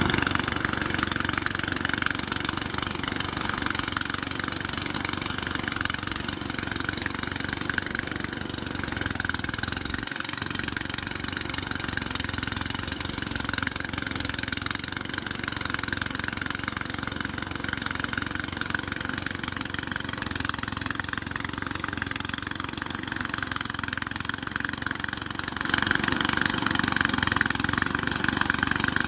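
An engine running steadily, with a brief dip about ten seconds in and growing louder for the last few seconds.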